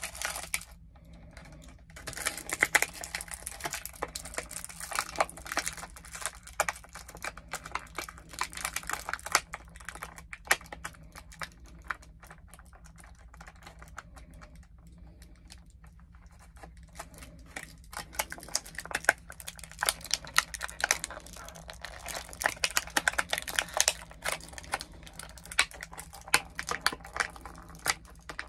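Clear plastic toy packaging handled and picked apart by hand: quick, irregular crinkling and small plastic clicks, with a short pause about a second in and a quieter stretch in the middle.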